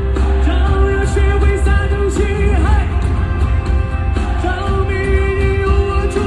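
Male singer performing a pop-rock song live over a loud band with heavy bass, holding long sung notes near the start and again near the end.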